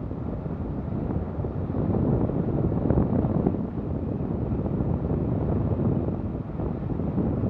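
Wind buffeting an action camera's microphone on a moving bicycle at about 13 mph: a steady low rushing noise that swells a little about two to three seconds in.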